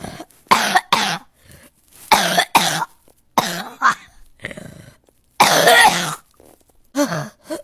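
People coughing: about six bouts of coughs, several in quick pairs, with a longer bout a little after halfway.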